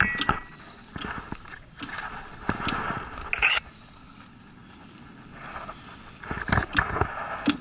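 Handling noise from a camera being lowered into an ice-fishing hole: scraping and knocking as it bumps through slush and broken ice, in several short bursts with a quieter stretch in the middle.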